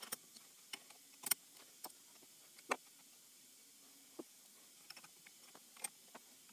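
Scattered light metallic clicks and taps, about a dozen, from a four-jaw chuck on a milling machine's index head being adjusted by hand while the work is indicated in against a dial indicator. The louder clicks come about a second in and near the middle.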